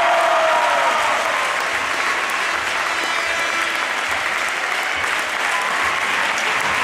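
Audience applauding steadily, with a voice carrying over the clapping in the first second.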